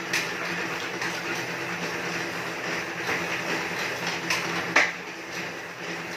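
Home elliptical cross-trainer worked at a steady pace: a continuous whir from the flywheel with a low hum under it. A few sharp clicks from the moving arms and pedals, the loudest a little before five seconds in.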